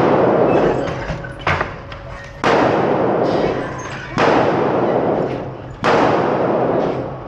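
Gunshots on a shooting range: four loud reports about one and a half to two and a half seconds apart, with a shorter, sharper crack between the first two. Each report is followed by a long echoing decay.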